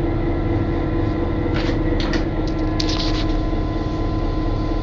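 Steady drone of an EMD GP38-2 locomotive's idling 16-cylinder two-stroke diesel engine heard inside the locomotive, with a low rumble and a steady hum. A few short clicks and rattles come in the middle.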